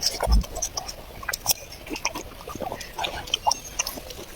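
A child chewing and eating, with irregular wet smacking and clicking mouth sounds. There is a low bump about a third of a second in.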